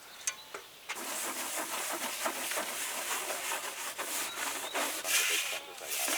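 Scrubbing the van's roof during cleaning: a rough, uneven rubbing that starts about a second in and is loudest near the end, after a few light clicks.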